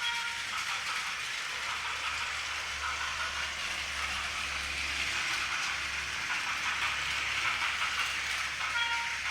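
Battery-powered toy trains, a Taiwan High Speed Rail model and a small Kamakura train, running on plastic track with a steady whirring rattle of their small motors and wheels. A short electronic horn-like sound effect from the toys comes right at the start and again near the end.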